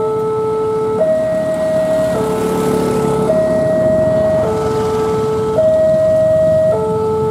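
Railway level-crossing warning alarm sounding a steady two-tone hi-lo, each tone held about a second, warning that a train is approaching.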